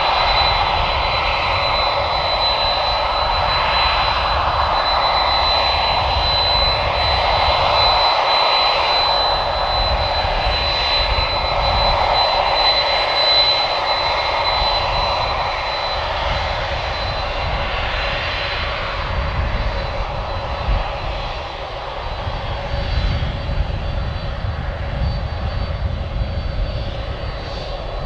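Japan Airlines Boeing 767's two General Electric CF6 turbofan engines running at taxi power as the airliner taxis past: a steady jet whine with a thin high tone over a rushing hiss and low rumble, easing slightly in the second half.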